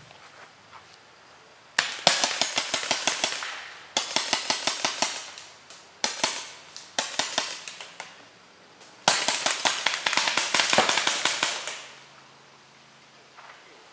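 Paintball markers firing rapid strings of shots, in four bursts of a second or two each, the last and longest running about three seconds.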